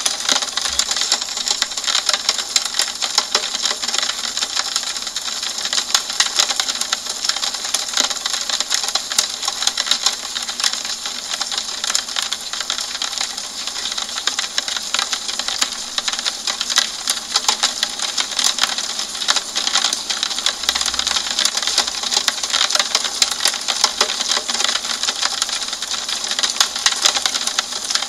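Steady rain falling on a window: an even hiss made of countless small, rapid drop taps that holds constant throughout.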